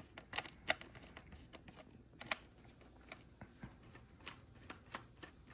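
Faint, irregular clicks and taps of hard plastic parts being handled as a switch is taken off the Toyota Prius master window switch assembly, about a dozen light knocks spread unevenly.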